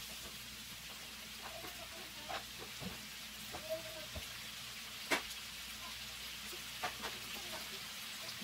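Sliced vegetables and sausage sizzling in a hot wok, with a few sharp knocks of a wooden spatula against the pan, the loudest about five seconds in.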